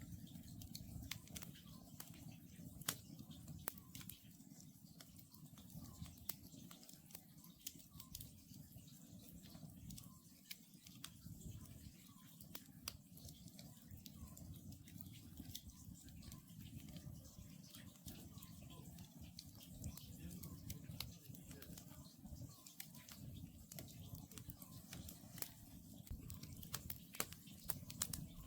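Wood campfire crackling, with frequent sharp pops and snaps over a low steady rumble of the flames.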